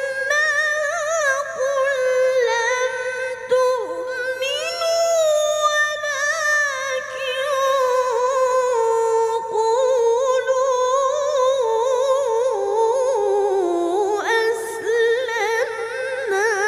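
A young boy qari chanting Quran recitation (tilawah) in long, melismatic held phrases with wavering ornaments, his high voice sinking slowly in pitch over the second half before a fresh phrase begins near the end.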